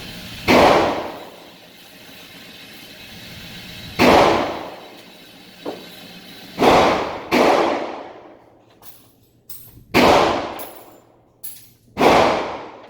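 Six single rifle shots from an AR-15, spaced unevenly over the span, two of them close together in the middle; each crack has a long echoing tail.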